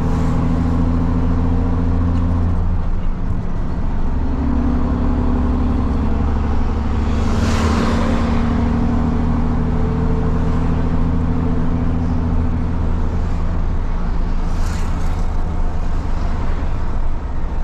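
Diesel truck engine with a straight-through exhaust running under way, heard from the cab; its steady drone breaks off about three seconds in, as for a gear change, and picks up again a second or so later. Brief rushes of noise come about halfway through and again near the end.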